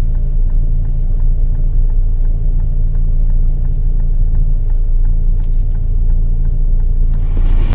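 Low, steady engine and road rumble of a car driving slowly, heard close up, with faint rapid ticking over it. A rushing noise swells near the end.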